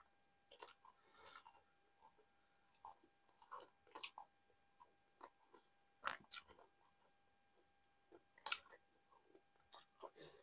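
Close-miked mouth sounds of a person chewing soft, tender stewed meat of nihari: faint, irregular wet smacks and clicks, a couple of louder ones about six and eight and a half seconds in.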